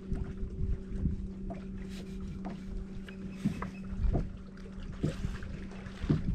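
Steady electric hum of a bass boat's bow-mounted trolling motor running, with low gusts of wind on the microphone and a few small knocks.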